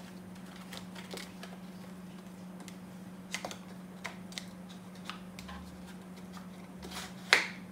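Light clicks and taps of a wooden cigar box and its paper insert being handled, with a sharper knock near the end. A steady low hum runs underneath.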